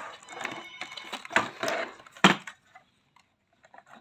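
Plastic robot-vacuum chassis and its wiring being handled by hand: rustling and scraping of plastic, with a few sharp clicks, the loudest a little past two seconds in.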